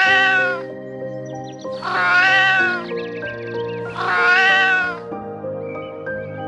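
Domestic cat meowing three times, each meow drawn out for about a second and rising then falling in pitch, about two seconds apart, over steady background music.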